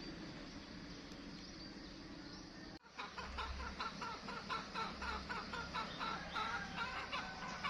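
A steady low hum and noise, cut off abruptly about a third of the way in. Then comes a quick run of short, repeated bird calls, about three or four a second, with a couple of low thumps.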